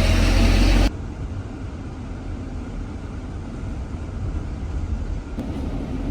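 Steady running noise of a driverless minibus in motion. Just under a second in, a louder low rumble cuts off abruptly.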